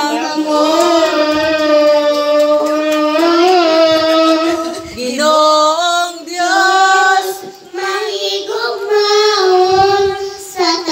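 A young girl singing into a microphone, holding long, steady notes, with short breaks between phrases.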